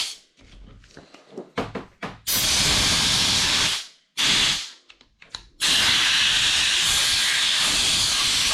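Compressed-air blowgun hissing in blasts as it is forced in under a rubber motorcycle handlebar grip to swell the grip and blow it off the bar. There is a blast of about a second and a half, then a short one, then a long steady blast from just past halfway, with faint handling clicks in the gaps.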